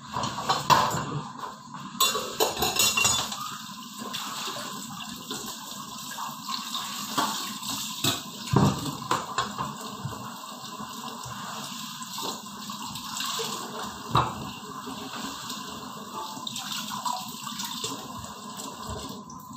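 Kitchen knife cutting squash on a wooden cutting board: irregular knocks of the blade striking the board over a steady rushing noise.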